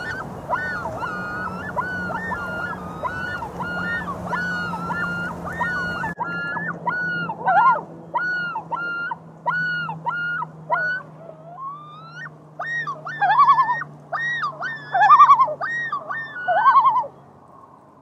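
Common loons calling: a long run of pitched notes repeated about twice a second, which turn louder and quavering over the last few seconds and stop about a second before the end.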